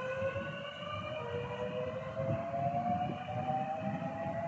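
Class 465/466 Networker electric multiple unit pulling away, its traction motors giving a rising whine in several overlapping steps, over a low rumble from the train.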